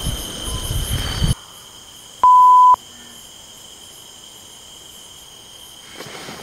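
A single loud electronic beep, one steady pitch for about half a second, over the steady high chirring of crickets at night. A low rumbling noise in the first second stops abruptly.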